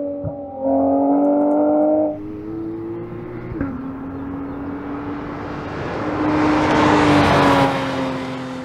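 Porsche 991.2 GT3's 4.0-litre naturally aspirated flat-six at high revs, its note holding steady and jumping abruptly a few times in the first four seconds. Then the car passes with a swelling rush of tyre and wind noise over the engine, loudest near the end before easing off.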